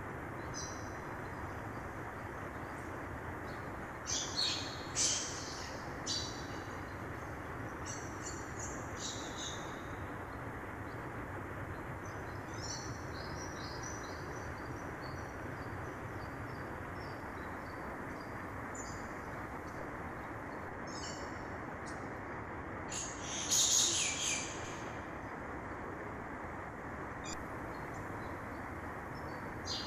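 Mountain river rushing steadily, with forest songbirds chirping over it in short repeated phrases. The birds are loudest about four seconds in and again about three quarters of the way through.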